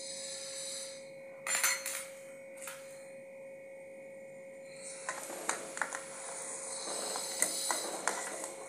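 Long metal ladle scraping and knocking in a metal wok as sugar and water are stirred for syrup, in a short burst about a second and a half in and again through the last few seconds. A steady high hum runs underneath.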